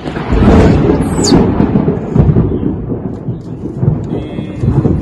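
Thunder rumbling: a sudden loud onset just after the start, then a long, deep, uneven roll that carries on.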